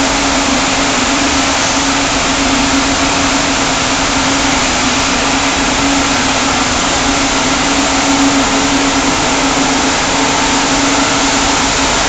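Rows of ring spinning frames running in a spinning mill: a loud, steady hiss of many spindles with a constant hum underneath.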